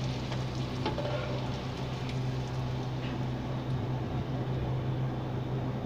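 A puri deep-frying in hot oil in a steel pot, making a steady sizzle, with a steady low hum underneath.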